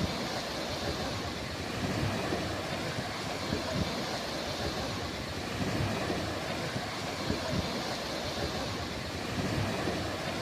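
Steady wash of ocean surf with a constant low, fluttering rumble of wind on the microphone.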